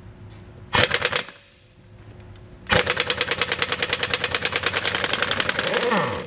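A 1-inch air impact wrench hammering lug nuts loose on a motorhome's dual rear wheel. A short burst comes about a second in, then a long run of rapid, even hammering from just under three seconds in, which ends as the tool spins down with a falling whine.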